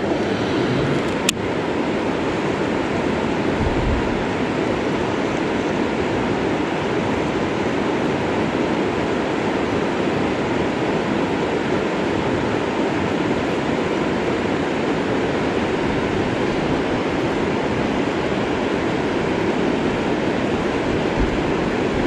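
Steady rush of river water pouring over a low rock ledge, with a single sharp click about a second in.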